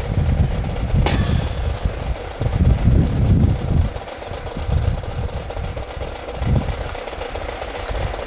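Wind rumbling on the microphone, with one sharp clack about a second in from a drill team's rifles striking together.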